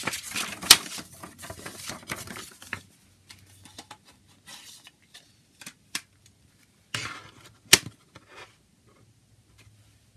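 Paper CD booklet rustling as it is folded, with a loud sharp tick under a second in, then scattered light clicks. About three-quarters of the way through comes a short burst of handling and a sharp clack from the plastic CD jewel case.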